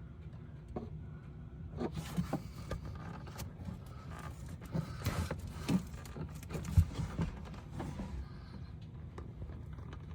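Faint rustling and scattered light clicks and knocks from hands and tools being moved around inside a car's footwell, over a low steady hum.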